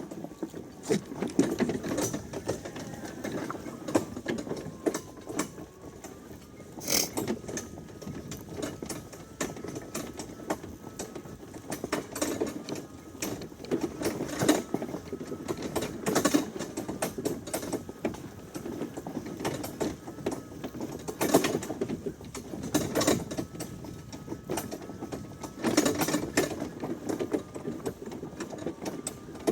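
Greenworks electric riding mower running with a faint steady motor whine while towing a loaded firewood wagon, with a continual rattle and knocking of the mower and wagon.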